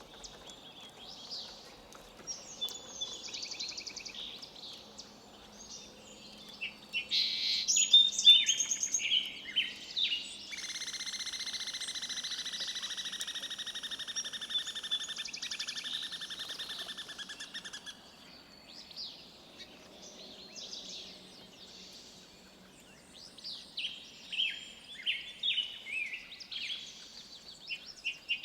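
Wild songbirds chirping and calling in short bursts. About ten seconds in, a long, rapid, even trill starts and runs for roughly seven seconds.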